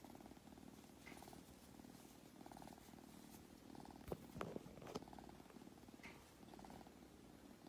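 Tabby kitten purring softly in an unbroken run of phrases, each about a second long. A few sharp clicks come about halfway through.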